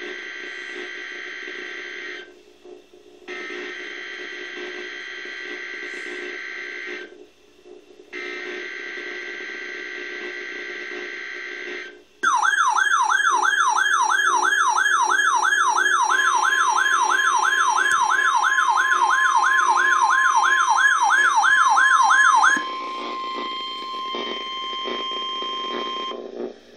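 NOAA Weather Radio test alert: three buzzy bursts of the SAME digital data header, then a weather radio receiver's alert siren warbling up and down about three times a second. About a third of the way into the siren, the steady 1050 Hz warning alarm tone joins it and carries on alone for a few seconds after the siren stops.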